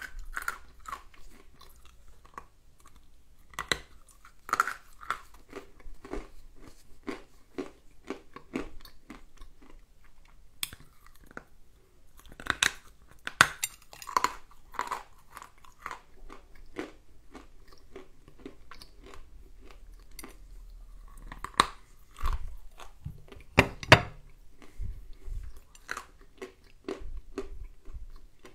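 Close-up crunching and chewing of a lump of dry edible clay, salty and soft-biting, with sharp crunches over a steady chewing rhythm. The loudest crunching bites come about halfway through and again near the end.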